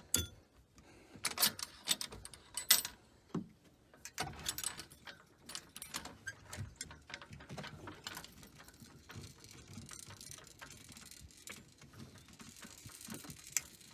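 Metal clinks and knocks from a sailboat boom and its fittings being handled as it is taken off to be rotated: a few sharp, separate knocks in the first few seconds, then a busier run of small clicks and rattling.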